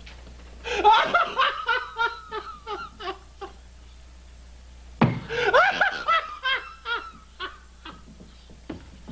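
Hearty laughter in two loud bursts, about a second in and again about five seconds in. Each is a quick run of ha-ha pulses that trails off, over a low steady hum.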